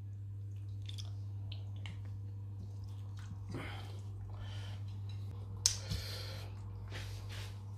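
Raw beef and pork pieces being pushed and arranged by hand in a pot of water: soft wet squishing and small clicks, with a brief louder noise about six seconds in, over a steady low hum.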